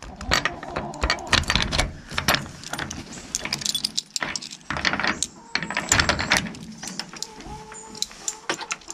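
Hardware on a chicken coop being handled: a busy run of sharp clicks, knocks and rattles at irregular spacing.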